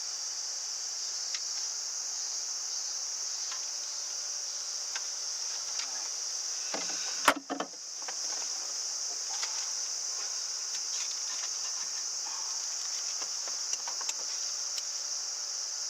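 A steady high-pitched insect drone, like crickets, with scattered light clicks and one sharper click about seven seconds in.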